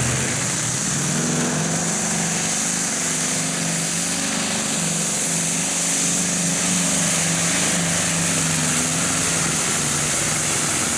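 Light modified pulling tractor's radial aircraft engine running flat out under load as it drags the weight-transfer sled down the track. The engine note holds steady and loud, with a strong hiss on top.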